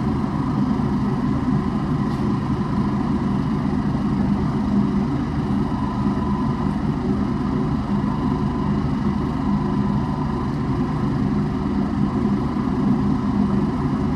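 Steady hum of a running motor, unchanging, with a faint steady tone in it.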